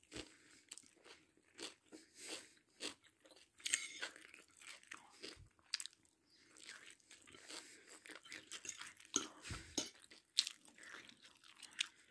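Faint, close-up chewing and crunching of a mouthful of chicken biryani with cashew nuts, in short irregular crunches.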